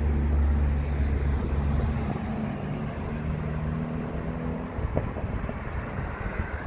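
A vehicle engine running with a steady low hum, loudest at first and fading out about five seconds in.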